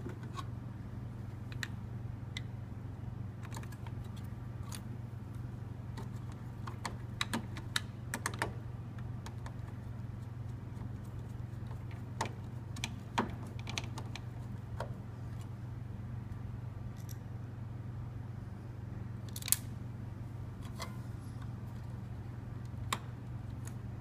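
Scattered small metallic clicks and taps as screws are driven with a hand screwdriver into a server's steel hard-drive cage bracket, at irregular intervals, over a steady low hum.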